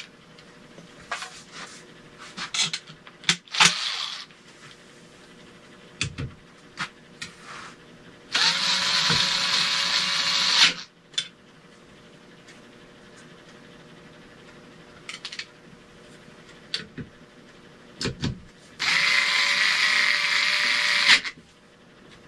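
Power drill run twice, about two and a half seconds each time at a steady speed, with clicks and knocks of handling between the runs.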